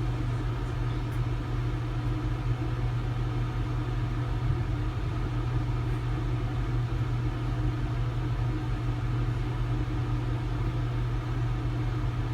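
A steady low hum, unchanging throughout, with no distinct events.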